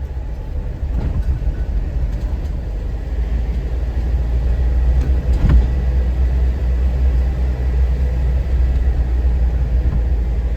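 Steady low rumble of a 4x4 vehicle's engine and road noise heard inside the cab while driving on a mountain road, with a few short knocks and rattles.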